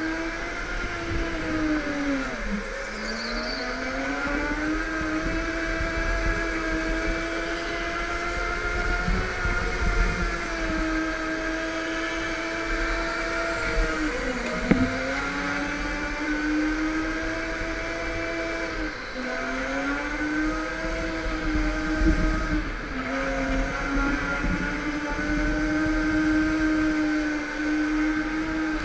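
Go-kart motor heard from the driver's seat while lapping, a steady pitched whine that drops sharply a few times as the kart slows for corners and climbs back as it speeds up again.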